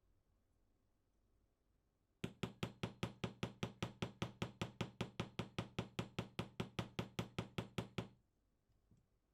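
Small hammer tapping the end of a model car's axle, about thirty quick, even strikes at roughly five a second, starting about two seconds in and lasting some six seconds: peening the axle end into a new mushroom head to hold the wheels on the die-cast base plate.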